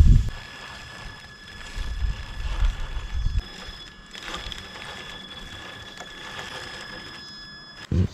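Traxxas TRX-4 RC crawler on TRAXX tank tracks, its electric motor giving a steady high whine as it creeps along at low speed. There is low rumbling in the first few seconds, and the whine cuts off near the end.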